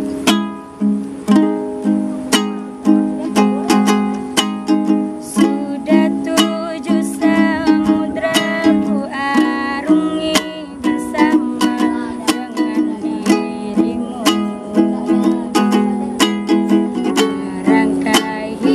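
Ukulele strummed in a steady rhythm of chords. A woman's singing voice comes in softly under the strumming about five seconds in.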